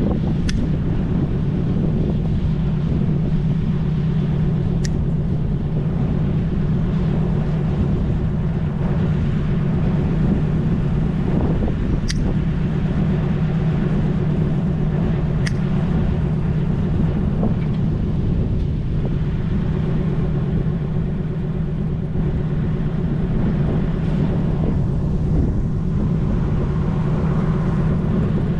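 Pruning shears making a few sharp cuts through apple-tree branches, single snips several seconds apart, over a loud steady low rumble.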